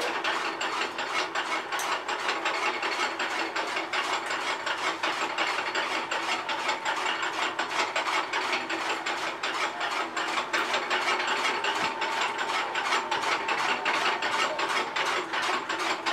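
Electric-motor-driven chaff cutter running, its flywheel and cutter blades turning with a steady, even clatter of rapid clicks.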